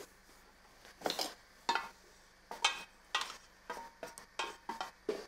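Stainless steel couscoussier steamer basket knocked against the rim of a glass bowl and scraped with a wooden spoon to empty out steamed vermicelli. It makes about nine sharp metallic clanks at uneven intervals, several with a short ring.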